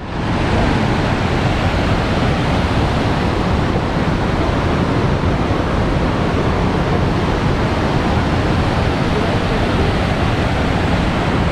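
Steady rushing roar of the Niagara River's upper rapids, white water churning over rocks; it fades in at the very start and then holds even.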